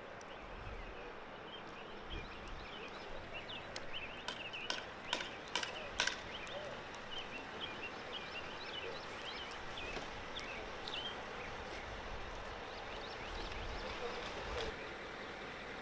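Small birds chirping and twittering over a steady outdoor background hiss, with a handful of sharp clicks or taps about four to six seconds in.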